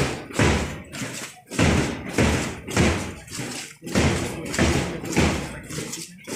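Steady thumps, about two a second, in time with a column of cadets marching in step.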